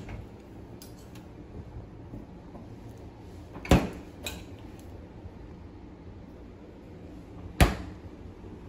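Refrigerator door being opened and shut: two sharp knocks about four seconds apart, the first followed by a lighter click, over faint room noise.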